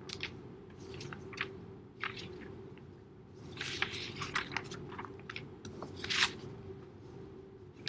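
Light clicks and rustling from a plastic anatomical skull model being handled and turned in the hands, over a steady low hum.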